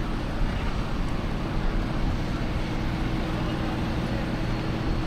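A vehicle engine running steadily, with a constant low hum and a faint steady tone.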